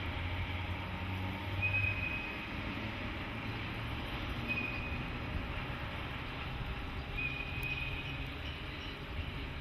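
JNR Class EF64 electric locomotive running slowly through a depot yard with a low rumble. Its wheels give three short, high-pitched squeals a few seconds apart.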